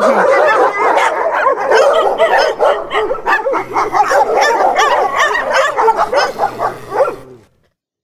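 Dog barking and yipping in a rapid, unbroken run of short calls that stops abruptly about seven seconds in.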